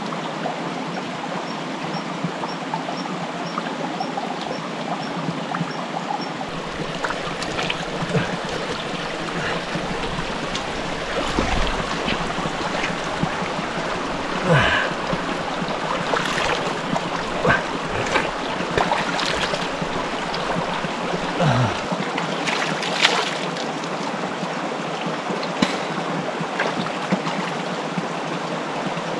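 A stream running steadily. From about seven seconds in there are scattered knocks and a few low thuds.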